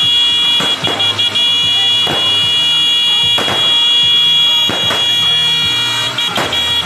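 Fireworks cake shots going off as a string of sharp bangs, about seven in as many seconds, at uneven intervals. A steady high-pitched whine sounds throughout.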